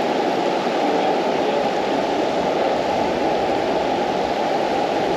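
Shallow river rushing over rocks through a riffle: a steady, even rush of water that does not change.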